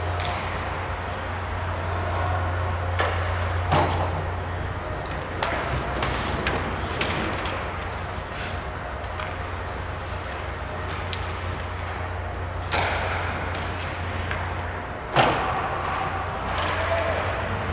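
Ice hockey play: skates scraping the ice and a string of sharp knocks from sticks and puck, the loudest about fifteen seconds in, over a steady low hum.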